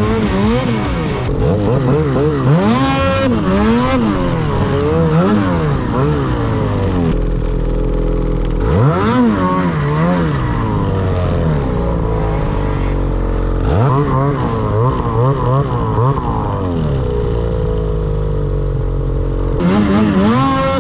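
Snowmobile engine revving up and down over and over as the rider works the throttle, with two sharp climbs in revs, about nine and about fourteen seconds in.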